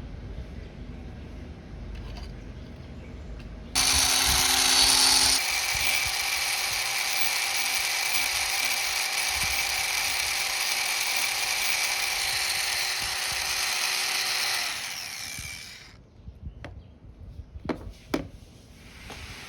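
Small Proxxon angle grinder switching on about four seconds in and running with a steady high whine for about eleven seconds, grinding down the mushroom head of a Swiss Army knife's back spring pin, then spinning down. A few light clicks follow near the end.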